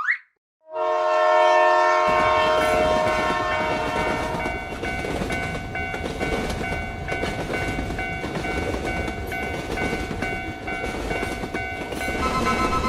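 A train horn blows a chord under a second in. About a second later a train starts rumbling past with rail clatter, and high tones keep ringing over it in a regular repeating pattern, like a railroad crossing signal.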